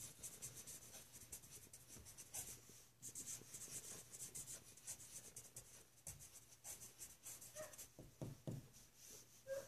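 Faint scratching of a pen writing words on a paper sheet, in short irregular strokes.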